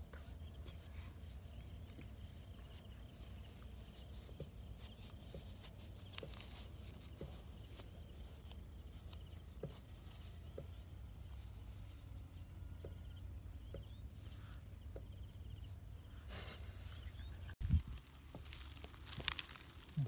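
Fingers scraping and digging loose soil out of a cricket burrow: soft scratches and rustles over a faint steady low hum, with a few louder knocks near the end.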